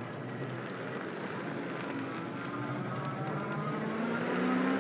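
Fat tire electric trike riding on hard-packed sand: a steady rush of tire and wind noise, with the 750 W hub motor's whine coming in about halfway and rising slowly in pitch as it speeds up.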